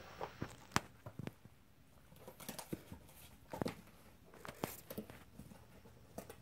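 Faint, irregular scratches and taps of a kitten clawing and biting at a shallow cardboard box.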